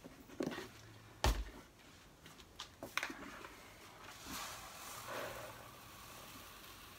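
A plastic bag of soda-lime granules being picked up and rustled over a rebreather's scrubber canister, with a sharp knock about a second in and a few small clicks.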